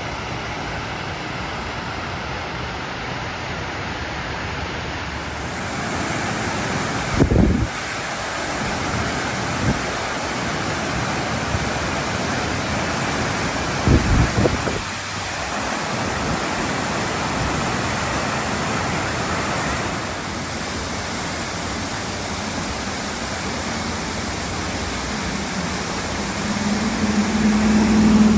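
Waterfall rushing in full flow, swollen after a day of heavy rain: a steady, even wash of water noise. Two short low thumps of wind on the microphone about 7 and 14 seconds in, and a low hum starts near the end.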